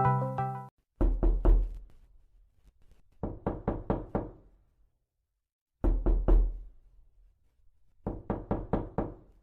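Knocking on a door meme sound effect: four bursts of quick knocks with a deep thud under each, three knocks, then about five, then three, then about five, with silent gaps between. A keyboard tune cuts off just before the first knocks.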